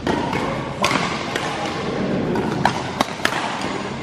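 Badminton rackets striking the shuttlecock in a rally: several sharp hits, three in quick succession near the end, over the steady background noise of a large sports hall.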